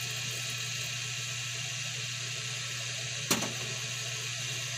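Pot of fish soup simmering on the stove: a steady hiss over a low hum, with one sharp click about three seconds in.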